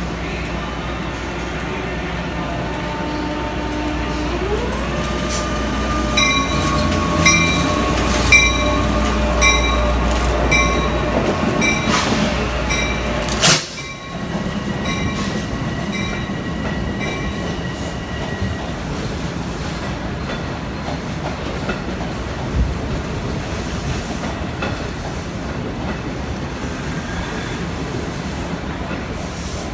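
EMD DM30AC dual-mode locomotive pulling away in electric mode: its traction inverters whine, rising in pitch as it accelerates, while its wheels clack over rail joints about once a second. About 13 seconds in comes one loud sharp crack of a third-rail arc at the contact shoe, followed by the steady rumble of a passing train.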